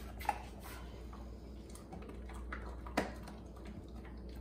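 A few faint clicks and taps from a dog moving about on a hard floor while sniffing at dental chews, the sharpest tap about three seconds in, over a steady low room hum.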